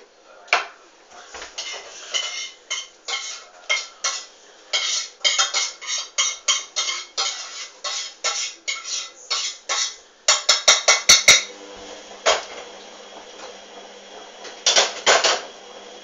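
Hoover front-loading washing machine tumbling a soapy load of coloureds in its main wash, with irregular clattering clicks as the load drops in the drum. A quick run of sharper clicks comes about ten seconds in, then a low steady hum with a few more clicks.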